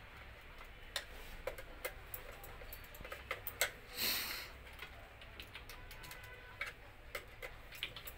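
Small, irregular clicks and taps of a screwdriver and wire ends working the screws of a photo beam sensor's screw terminal block, with one short rustling hiss about four seconds in.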